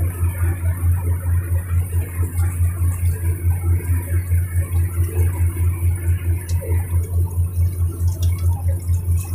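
A riverboat's engine running steadily: a deep, even drone with a regular throb about four or five times a second.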